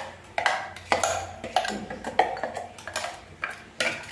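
Spoon knocking and scraping against a mixer jar while scooping out thick ground masala paste: a series of sharp clinks with short ringing, about two a second.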